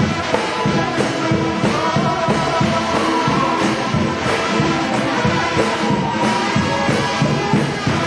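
Trombone shout band playing a gospel number: massed brass over drums with a steady beat.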